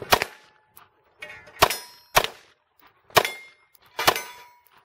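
Five handgun shots fired at uneven spacing over about four seconds at steel targets. The steel plates ring with a metallic clang when hit.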